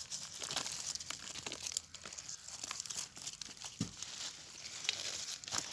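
Hands breaking dry soil and withered roots off freshly dug turmeric rhizomes: irregular rustling and crackling, with small snaps as roots tear.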